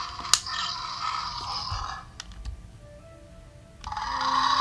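Beast Lab Shark Beast figure's built-in speaker playing its electronic sound effects as the chest core button is pressed. One burst fades out about two seconds in and another starts near the end, with a sharp click just after the start.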